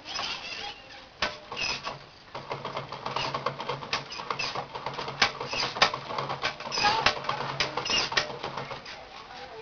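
An old bicycle's pedals and chain rattling and clicking irregularly as it is pedalled to drive a converted motor water pump. A low steady hum comes in about two seconds in and stops shortly before the end.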